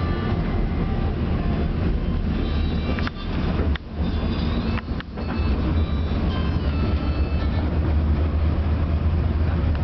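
A tram running along the rails, heard from on board: a steady low rumble with faint thin high tones above it. The sound dips briefly twice, about four and five seconds in.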